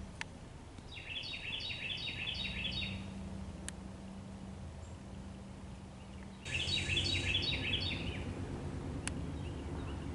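A songbird singing a fast run of repeated chirping notes, once about a second in and again from about six and a half seconds, over a steady low background rumble.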